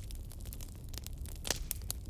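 Wood fire crackling: irregular sharp pops and snaps from burning logs, one louder pop about one and a half seconds in, over a low steady rumble.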